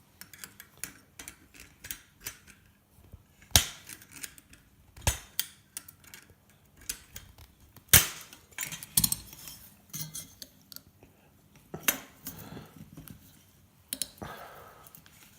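Metal parts of an old light fitting clinking and knocking as it is taken apart with hand tools: irregular small clicks and scrapes, broken by several louder sharp knocks.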